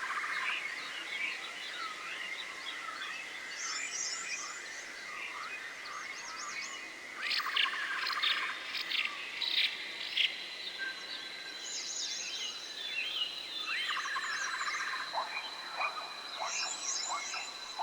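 Forest ambience: many birds chirping and trilling at once over a steady high whine, like an insect drone. A run of sharper, louder chirps comes about halfway through.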